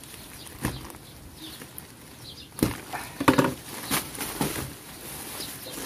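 Plastic packaging rustling and crinkling as a parcel is torn open by hand, with a handful of sharp crackles, the loudest about halfway through.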